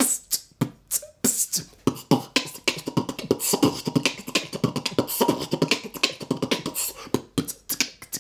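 A person beatboxing: a fast, continuous run of mouth-made drum sounds, with sharp clicks and hisses mixed with some voiced, pitched parts.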